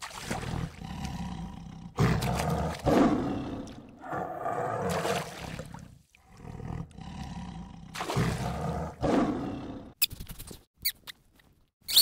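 A tiger roaring, a series of loud calls about a second each with short gaps between them. Near the end a monkey's high-pitched squeaks take over.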